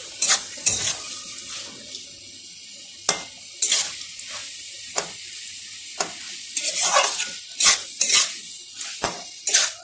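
Long flat metal spatula scraping and stirring potato curry around a metal kadai in irregular strokes, with a light sizzle underneath. The curry is being cooked down until dry.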